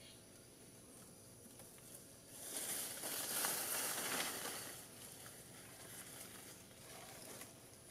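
Leaves and branches rustling for about two and a half seconds, swelling up a little over two seconds in and dying away near five seconds.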